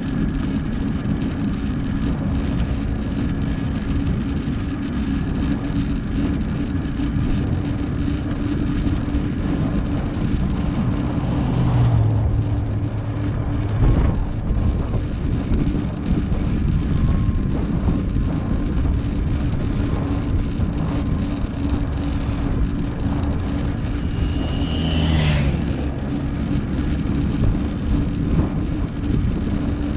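Steady rush of wind over a GoPro's microphone on a bicycle coasting fast downhill. A motor vehicle passes about twelve seconds in and another about twenty-five seconds in, each falling in pitch as it goes by.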